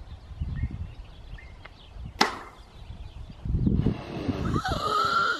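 A single sharp, very short shot about two seconds in, aimed at a ground squirrel, followed from about three and a half seconds in by a louder stretch of noise with a wavering pitched sound.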